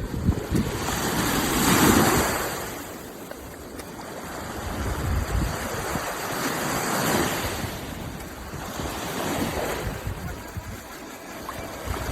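Rushing water with wind noise on the microphone, swelling and fading about four times, loudest about two seconds in.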